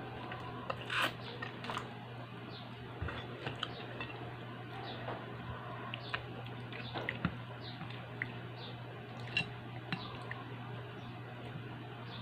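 Close-up eating sounds: chewing and mouth noises, with a plastic spoon clicking and scraping against a plate in scattered short taps, over a steady low hum.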